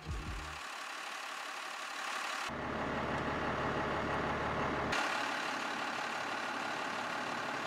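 First-gen Cummins 5.9-litre inline-six turbo diesel idling steadily while the refilled cooling system is bled of air. The sound changes abruptly about half a second in, again at about 2.5 s and at 5 s, with a heavier low rumble in the middle stretch.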